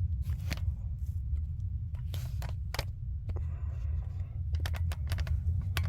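Scattered light clicks and taps of handling noise, with a short rustling hiss a little past the middle, over a steady low hum.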